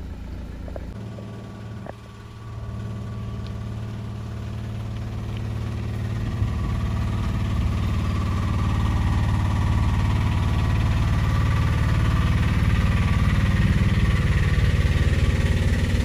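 Diesel engine of a cab-over semi-trailer truck running steadily as the rig rolls slowly past, growing louder throughout. The sound of a different truck's engine is heard briefly at the start.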